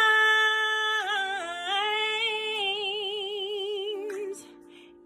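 A woman singing a single long held note with no words: the pitch steps down and back up about a second in, then settles into a wide vibrato before dying away just over four seconds in.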